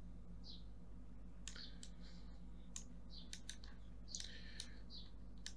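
Computer mouse and keyboard clicks: scattered sharp clicks starting about one and a half seconds in, over a faint steady low hum.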